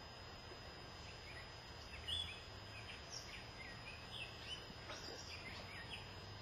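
Faint, scattered bird chirps over a steady low background hum.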